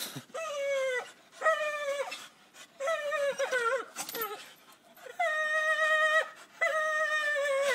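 Staffordshire bull terrier whining: a series of about six long, high whines, each around a second, with short breaks between, the last two steadier and held longer.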